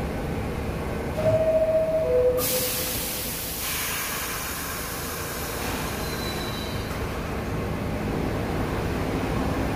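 R62A subway train at the platform: a two-note falling door chime, then a loud hiss of air as the doors close, fading within about a second and a half. The stopped train's steady hum and rumble continue underneath.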